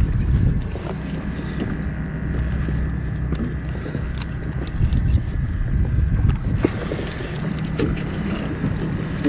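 Fishing boat's engine running steadily with a low hum, with wind gusting on the microphone and occasional light clicks and knocks.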